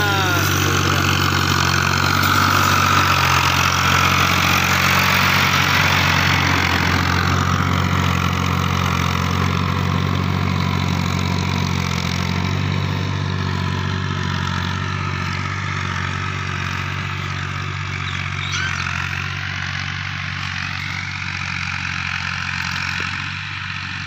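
Diesel farm tractor running steadily under load while pulling a plough through dry soil. It is loudest in the first few seconds as it passes close, then slowly fades as it moves off.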